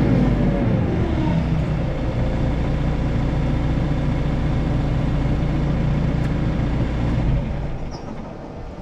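Large wheel loader's diesel engine running: a pitched whine falls away over the first second or so, then a steady low engine note carries on and fades about seven and a half seconds in.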